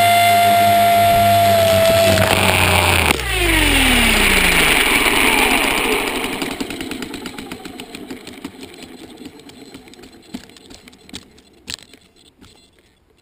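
HK450 electric RC helicopter's motor and rotor whine running steadily, then dipping in pitch. About three seconds in there is a sharp hit, and the rotor winds down with a falling whine that fades over several seconds, with a few clicks near the end. This fits the rotor blades chopping into the ground.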